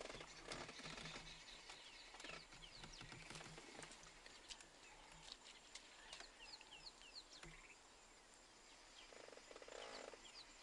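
Faint birds chirping: short, downward-sliding high notes in scattered runs, over a low steady hum, with a brief buzz near the end.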